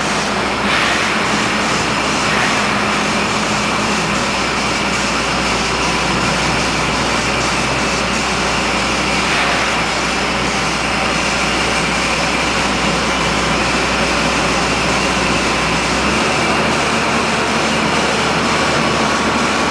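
Rotary drilling rig's engine running steadily, a loud even machine noise. The lowest hum drops away about three-quarters of the way through.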